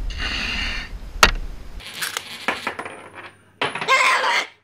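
Wind and water noise for the first couple of seconds, then coins clinking and rattling in a metal jar as a pet cockatoo digs them out, with a loud burst of clinking near the end.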